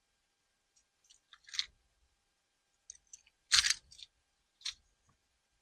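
Scattered short clicks and crackles of handling, with the loudest crackle about three and a half seconds in and a last click near the end.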